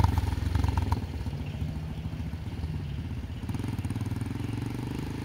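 Motorcycle engine running as the bike moves off slowly in a low gear, dropping in loudness about a second in as it pulls away, then running steadily.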